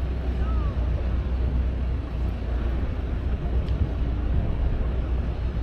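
Outdoor city street ambience: a steady low rumble of traffic.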